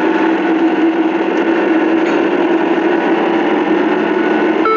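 Car engine and road noise heard inside the cabin while driving: a steady drone that holds level throughout.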